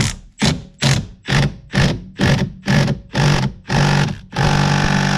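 Impact gun hammering on the steering wheel bolt in about nine short trigger pulls, roughly two a second, then one longer burst near the end, without breaking the bolt loose.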